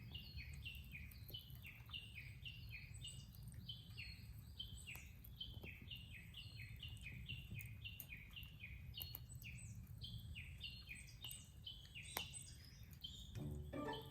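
A bird calling over and over: a steady run of short chirps, each falling in pitch, a few a second, faint over a low steady rumble, with a few faint clicks.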